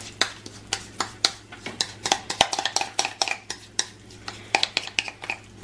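A utensil clinking and scraping against a ceramic mixing bowl as the last of the drop-biscuit dough is scraped out, in quick irregular taps, several a second.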